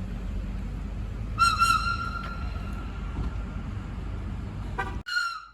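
Pikes Peak Cog Railway train running with a steady low rumble. About a second and a half in, its high whistle gives two short toots and then holds for about a second before fading. Just before the end comes a quick run of clicks, then the sound cuts off suddenly.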